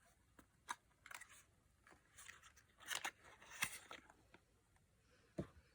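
Faint, scattered clicks and crinkles of product packaging being handled, with a soft knock near the end.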